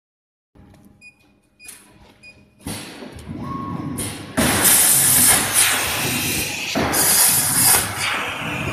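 Loud, rushing hiss of air from an LGK 63A plasma cutting machine. It starts a little under three seconds in, grows louder about a second and a half later, and has surges of sharper hiss. A few faint short beeps come before it.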